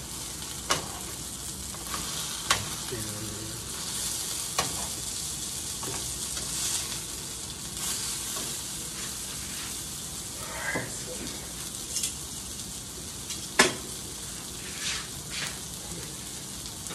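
Sausage patties sizzling in a frying pan, with sharp clicks of metal tongs against the pan as they are turned; the loudest click comes a little past the middle.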